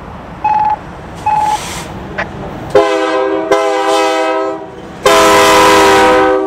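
Nathan K3H three-chime air horn on a CN SD75I locomotive sounding a chord in three blasts: two back to back starting about three seconds in, then a louder, longer one near the end. Before the horn there are two short beeps.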